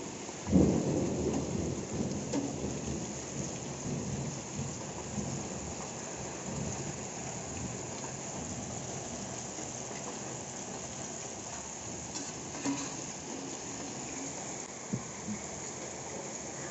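Oat-coated chicken pieces deep-frying in a pot of hot oil, a steady sizzling hiss, with a louder low rumble about half a second in that fades over the next second or two.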